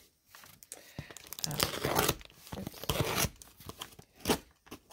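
Packaging of a shipping box being torn open by hand: an irregular run of tearing and crinkling rustles, with one sharper rip about four seconds in.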